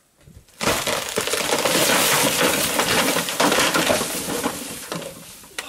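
An African elephant pushing a tree over: wood cracking and splintering, then a long crash of breaking branches, starting suddenly about half a second in and fading away over the last second or so.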